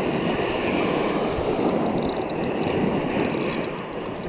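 Surf washing up on a sandy beach, mixed with wind buffeting the microphone, as a steady rushing noise.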